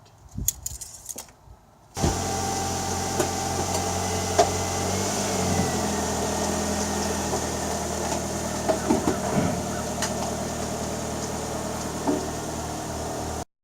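Car engine idling steadily after a sudden start of the sound, its pitch rising briefly and settling back about five seconds in; it cuts off abruptly near the end.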